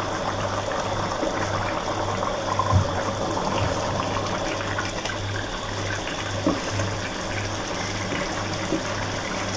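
Rice boiling in beef stock in a large pot, bubbling steadily as the stock cooks down before the dum stage, with a wooden spatula stirring through it and knocking lightly against the pot a couple of times about three seconds in.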